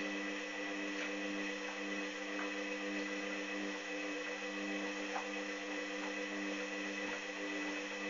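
Hoover Dynamic washing machine's motor humming steadily as the drum turns the laundry over at tumble speed, with faint, irregular light ticks from the drum and load.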